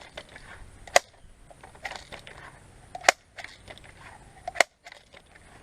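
Crosman 417 multi-pump .177 BB gun being pumped up: a sharp clack about every one and a half seconds as the pump stroke is worked, with smaller clicks of the mechanism between.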